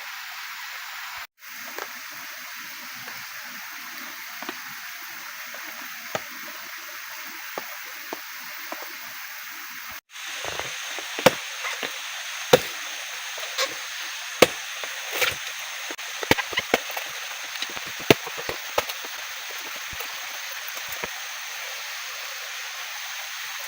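A steady hiss, cut off twice for an instant. From about ten seconds in come irregular sharp chopping knocks, a dozen or more, some much louder than others.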